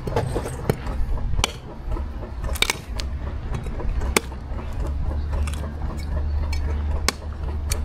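Irregular sharp knocks and clinks, about a dozen spread unevenly, of a blade hacking open a mature coconut, over a steady low rumble.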